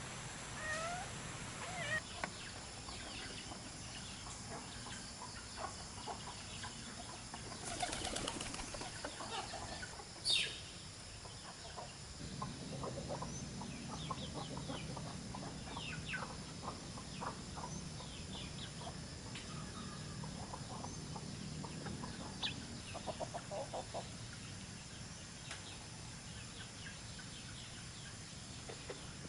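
Chickens clucking and flapping their wings, with scattered short calls and one short sharp sound about ten seconds in.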